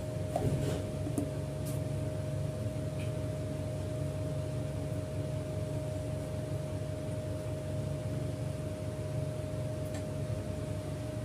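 Steady machine hum with a constant thin whine running through it, and a few light clicks in the first two seconds.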